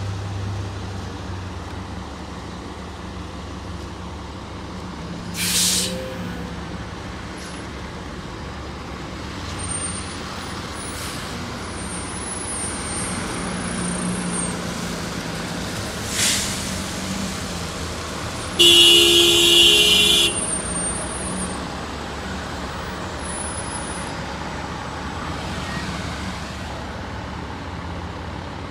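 Orion V diesel transit bus running as it waits and then pulls away on a wet road, with two short air hisses about 5 and 16 seconds in. A horn honks for about a second and a half, the loudest sound, about two-thirds of the way through.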